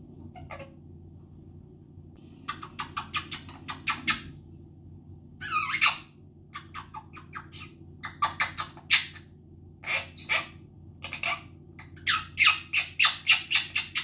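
Blue Quaker parrot (monk parakeet) chattering: bursts of short, rapid, harsh calls strung together several to the second, coming in runs with pauses between, the loudest and longest run near the end.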